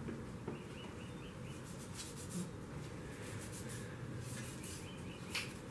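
Faint rubbing and scratching as a pair of old pliers is wiped with a cloth rag and scrubbed with an abrasive pad, with two short faint squeaks.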